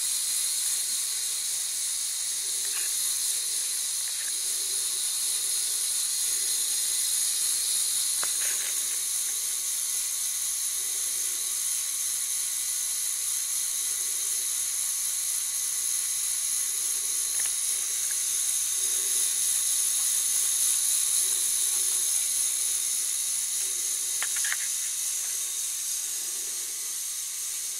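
LEGO Technic bucket-wheel excavator's electric motor and plastic gear train running under power, a steady high-pitched whine with a soft knock every second or so and a few sharp clicks.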